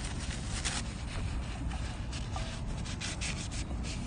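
Kitchen paper rubbing against a scooter's wheel rim in a few short wiping strokes, wiping off glass cleaner, over a steady low rumble.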